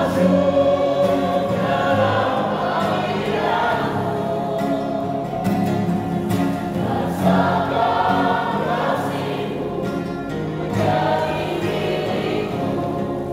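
Choir singing a Christmas hymn, many voices holding long chords in phrases a few seconds long.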